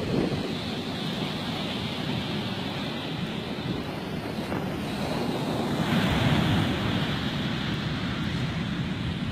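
Ocean surf breaking on a beach, a continuous rushing wash with wind buffeting the microphone; a wave breaks louder about six seconds in.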